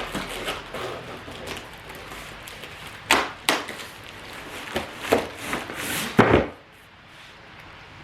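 Boxed flat-pack end tables being handled: packaging rustles, with several sharp knocks of the panels, the loudest about three seconds in and again just after six seconds in.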